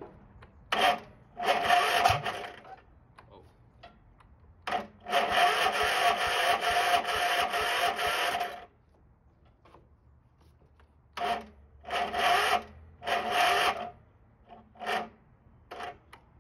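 A 15 hp Yard Machines riding mower's engine being cranked by its electric starter in repeated tries: a short crank, one of nearly four seconds, then several short bursts. It does not catch, with the reassembled old carburetor fed from a small side tank.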